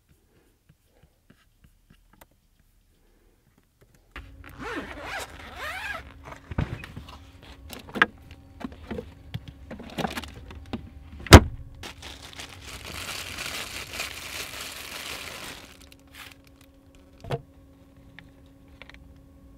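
Food being handled out of a portable fridge: packages rustling, clicks and knocks, one sharp snap about eleven seconds in, then a few seconds of plastic bag crinkling, over a steady low hum. The first four seconds are near silence.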